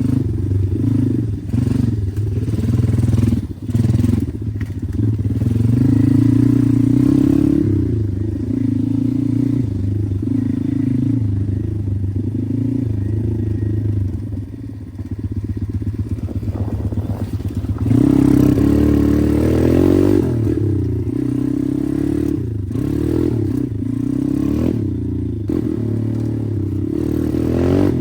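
Pit bike engine running under way, revving up and down as it is ridden. The revs drop off around the middle and then pick up sharply about two thirds of the way in.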